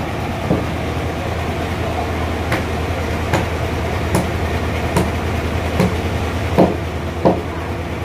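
About eight hammer blows, roughly one a second with a short pause early on, the last two the loudest, over the steady hum of the sawmill's engine running.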